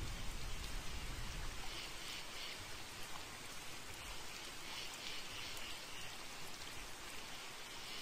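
Steady water ambience, an even hiss like rain or running water, with a low rumble fading away over the first second or two and faint higher patches coming and going.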